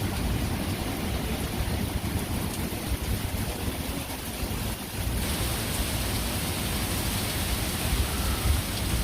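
Heavy rain pouring down in a windblown thunderstorm, a steady hiss with wind rumbling on the microphone. The rain grows louder about five seconds in.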